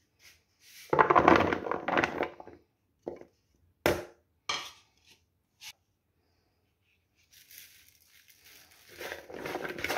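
Raw taro root slices tipped from a plate into a bowl, a dense clatter about a second in, followed by a few single clicks of pieces knocking together. From about nine seconds a hand tosses the salted slices in the bowl, a continuous rustling clatter.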